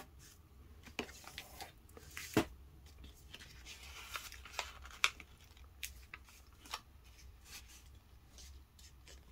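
A sheet of paper being handled and folded on a tabletop: faint, scattered rustles and light taps, a more distinct one about two and a half seconds in.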